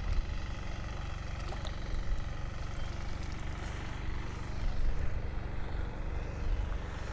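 Wind buffeting the microphone: a low rumble that swells and drops in uneven gusts.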